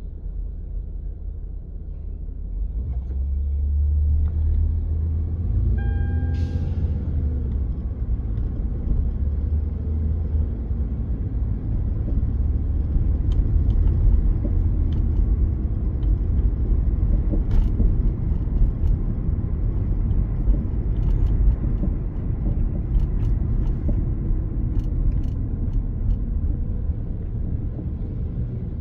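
Low rumble of car engine and road noise heard from inside the cabin, getting louder about four seconds in as the car pulls away from a stop, with a short hiss about six seconds in.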